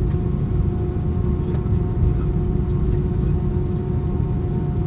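Airbus A319's IAE V2500 jet engines heard from inside the cabin: a heavy, steady rumble with a few steady humming tones over it.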